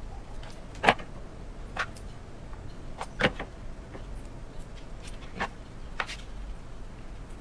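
A few separate sharp clicks and knocks, the loudest about a second in and just after three seconds in, over a low steady background noise.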